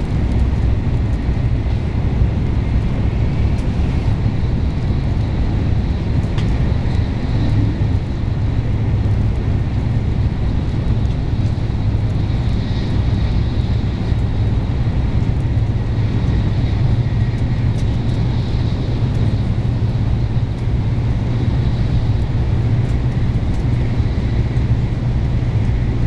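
Steady low rumble of a Shinkansen bullet train running at speed, heard from inside the passenger car.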